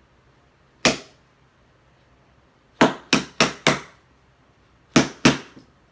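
Seven sharp knocks: one, then four in quick succession, then two. They are hard blows on a plastic bath toy being forced open, and the toy is not cracking in half.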